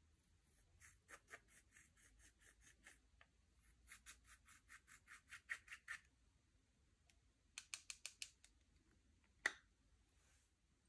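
Slime being squeezed and worked by hand, making faint runs of small crackling pops, about seven a second, in three bursts, with one sharper pop near the end.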